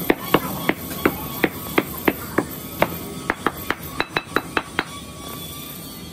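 Hammer rapping on a pattern bedded in moulding sand: a series of sharp knocks about three a second, quickening to about six a second before stopping about five seconds in. This is the rapping that loosens the pattern in a sand-casting mould so that it can be drawn out.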